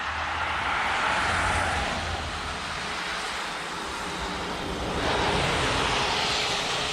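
Kyosho Blizzard 2.0 RC snow vehicle running, its twin 1/16-scale brushless motors whining as the tracks churn through snow. The sound swells louder about a second in and again around five seconds in.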